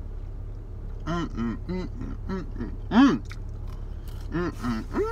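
A man's wordless voice making a string of short, rising-and-falling hums while he chews food, the loudest about three seconds in. A steady low hum from the idling car and its air conditioning runs underneath.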